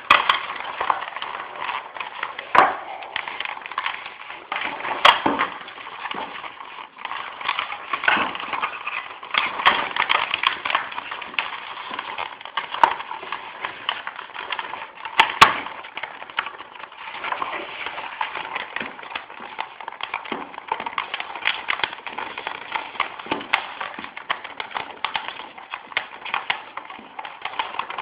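Hands tightening the front attachment of a home-made phone mount on a bicycle helmet: continuous scratching, rustling and small clicks of handling, with a few sharper knocks.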